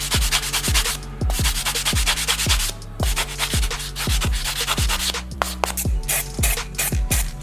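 Electronic background music with a steady kick-drum beat, over a dense abrasive rubbing noise like sanding.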